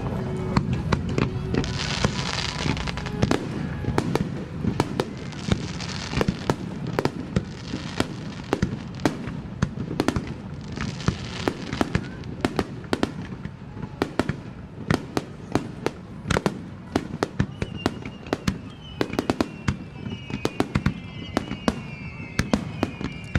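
Aerial fireworks finale: a rapid barrage of shell bursts, dozens of sharp bangs in quick succession. High hissing swells come three times early on and halfway through. Near the end several whistling tones glide down in pitch together.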